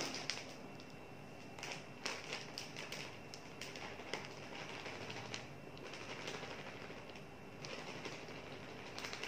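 Plain flour pouring from its bag into a stainless-steel bowl: a soft rustling hiss that comes and goes, with scattered light clicks and crinkles of the bag.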